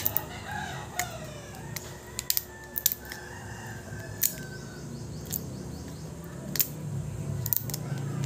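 A rooster crowing in the background, one long call that rises and then falls, starting about half a second in and lasting about three seconds. Throughout, sharp clicks and taps of the phone's plastic and metal parts and tools being handled.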